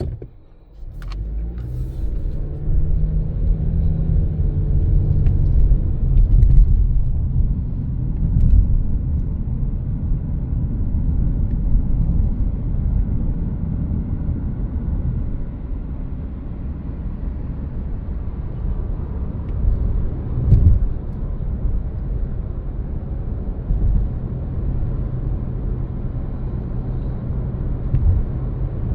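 A car driving, a steady low rumble of engine and road noise. It starts abruptly, with a few sharp clicks in the first couple of seconds and a brief louder bump about twenty seconds in.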